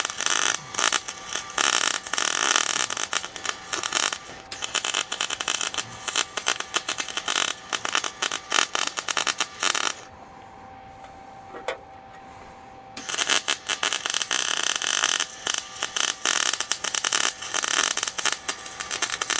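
MIG welding arc crackling as beads are laid on the vise screw. It stops for about three seconds in the middle, leaving a faint steady hum, then starts again.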